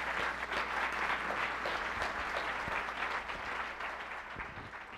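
Audience applauding, a dense steady clapping that tapers off over the last couple of seconds.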